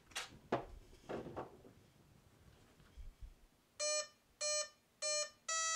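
A few clicks as the XT60 battery connector is pushed together, then the RC plane's electric speed controller sounding its power-up tones through the motor: three short, even beeps and, near the end, a longer tone. This is the ESC's startup and arming signal at zero throttle.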